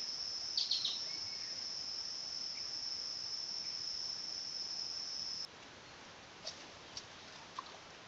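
An insect's steady, high-pitched trill, like a cricket or cicada, that cuts off suddenly about five and a half seconds in. A few short faint chirps come near the start and three more near the end.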